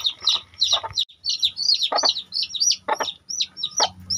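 Day-old chicks peeping continuously in short, high chirps, several a second. In the second half, a hen clucks three times, about a second apart.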